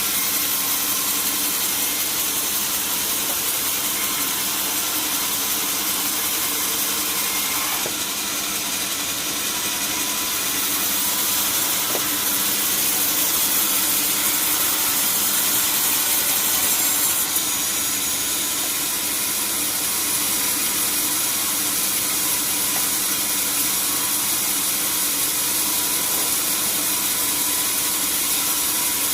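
Sawmill saw running steadily as it cuts through a hard, dry teak log, with a continuous high hiss of the blade in the wood over a machine hum.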